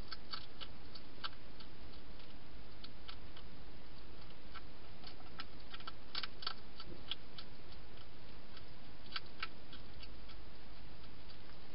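Wild hedgehog eating inside a plastic feeding box: irregular crisp clicks and crunches of chewing, over a steady hiss.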